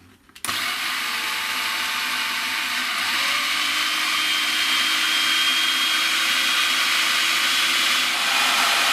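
Electric kitchen mixing appliance starting up about half a second in and running steadily, mixing cookie crumbs with icing sugar; it gets a little louder twice.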